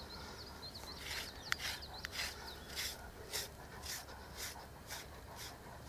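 FURminator deshedding tool drawn through a German Shepherd's thick coat: a series of short, soft scraping strokes, about two a second, pulling out loose undercoat.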